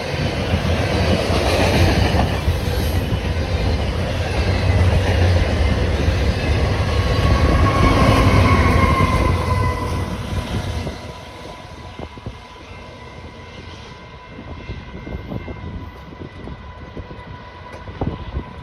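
Freight cars of a Canadian National grain train rolling past with a heavy rumble and clatter of wheels on rail, and a high wheel squeal around eight seconds in. The noise drops sharply about eleven seconds in, leaving fainter clicks of wheels on rail joints.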